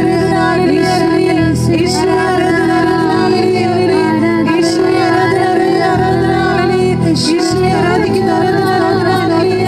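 A woman singing a slow devotional hymn over sustained instrumental chords, the bass note changing every second or two.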